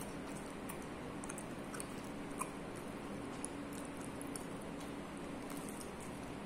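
A person chewing a mouthful of soft egg pancake roll (Taiwanese dan bing), with small wet mouth clicks, over a steady low hum.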